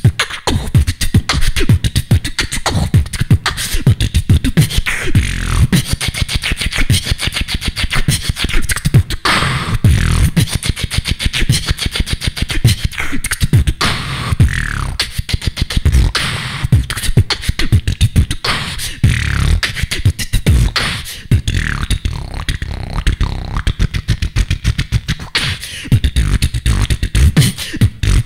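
Solo human beatboxing into a handheld microphone: a fast, unbroken run of mouth-made kicks, snares and clicks over deep bass, with short gliding pitched sounds now and then.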